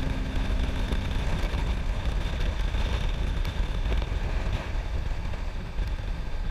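Wind buffeting the microphone over the rumble of a motorcycle running at road speed, a steady dense low roar.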